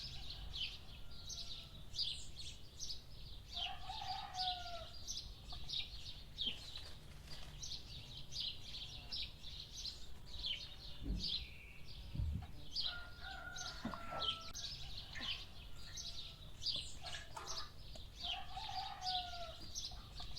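Farmyard birds: small birds chirping busily throughout, with chickens clucking a few times. Two low thumps come a little past the middle.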